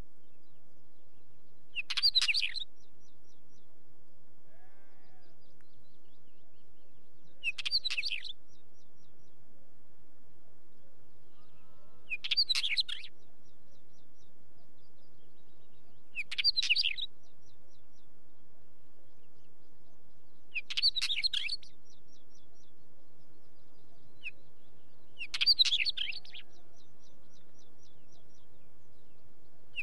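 Northern wheatear singing: six short song phrases, each under a second, about every four to five seconds.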